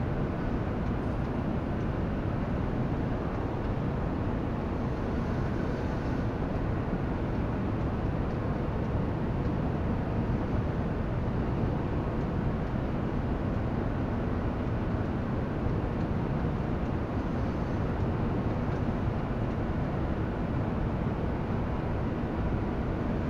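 Tractor engine running steadily under load as it pulls a John Deere round baler through hay, heard from inside the closed cab as an even drone.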